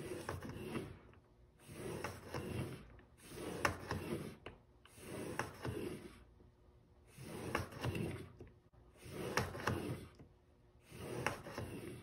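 Iron Will single-bevel steel broadhead in a KME sharpener drawn across 2000-grit abrasive in slow, light edge-trailing strokes. Each stroke is a scraping rub about a second long, seven in all, one roughly every two seconds. The strokes polish the edge and line back up the burr rolled over from the back side.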